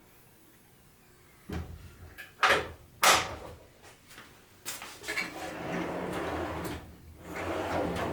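Hardware on a portable planer stand being worked by hand. Three sharp clacks come in the first few seconds, the third the loudest, then two longer rattling, sliding stretches.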